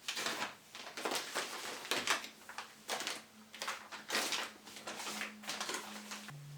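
Household cleaning and handling noises: a run of irregular soft swishes and rustles with a few light knocks.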